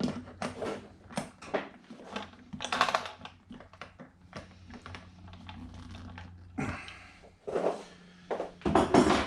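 Irregular clicking and knocking of a small wrench and hand tools on the wheel of an RC monster truck as the wheel nut is tightened, with a few louder clattering bursts.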